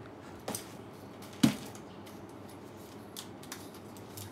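Handling noise from a tripod being taken hold of and tipped over: a click about half a second in, then one sharp knock about a second and a half in, with a few light ticks after it.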